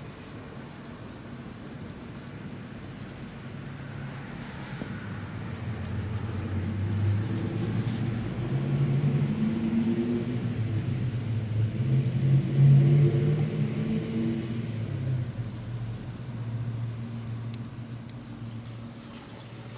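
Low motor-vehicle engine rumble that swells gradually, peaks about two-thirds of the way through and then fades, like a vehicle passing by.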